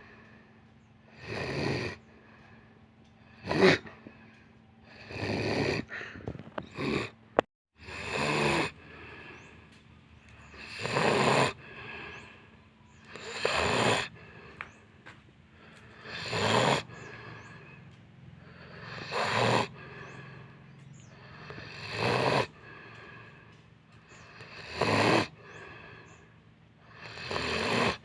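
A person snoring heavily in sleep, one loud snore about every three seconds.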